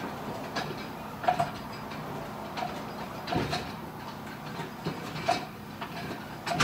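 Irregular metal clinks and knocks as a clutch-pack part is rocked back and forth and spun to drop onto its splines inside a 4L60E/4L65E automatic transmission case, with a sharper clunk near the end that signals the part has seated all the way.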